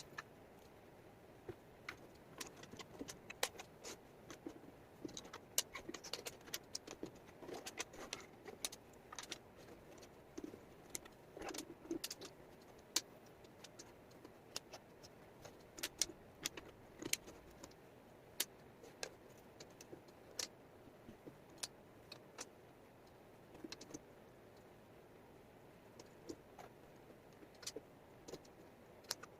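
Small wooden jigsaw puzzle pieces clicking and clattering as they are handled and fitted. The clicks come irregularly, busier in stretches, over a faint background hiss.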